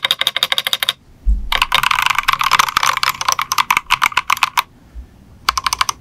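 Typing on an Ajazz AC064 mechanical keyboard (aluminium case, Ajazz Banana tactile switches) in its stock, unmodded state: fast runs of key clacks broken by two short pauses, sounding hollow and pingy.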